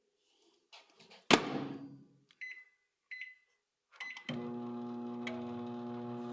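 A microwave oven door is shut with a sharp knock about a second in, followed by a few short keypad beeps. About four seconds in the oven starts up and runs with a steady hum.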